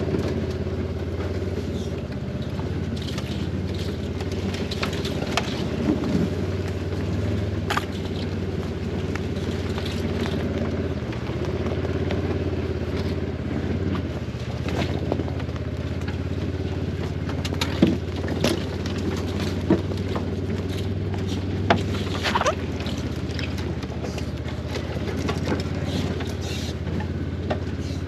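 ATV (four-wheeler) engine running steadily while riding over a rough forest trail, with a few sharp clicks and knocks along the way.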